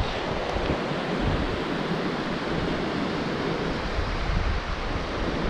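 Steady rush of a small mountain stream running over rocks, with strong gusty wind buffeting the microphone in uneven low rumbles.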